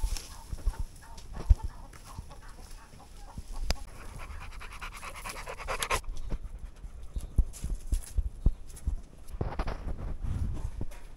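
An animal panting in quick, even breaths for a couple of seconds, among scattered clicks and knocks.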